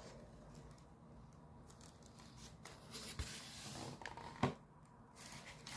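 Faint handling of a cardboard mailing box being opened: rustling and scraping, with two brief knocks.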